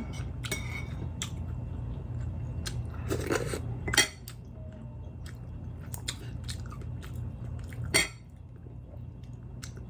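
Close-miked chewing and crunching of food, with many short wet clicks and two louder sharp bites or knocks about four and eight seconds in, over a steady low hum.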